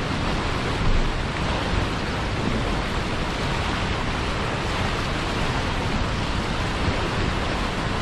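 Turbulent white water rushing and churning below a dam outflow: a steady, even rush of water.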